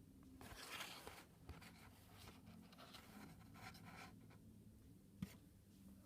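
Faint scraping and rustling from handling packaging, a few short strokes with a small click about five seconds in.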